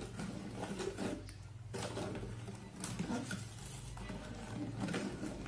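A metal utensil stirring a thin, powdery chocolate pudding mixture in a metal pot, with soft irregular scraping and light clicks against the pot as the powder is mixed into the liquid before cooking.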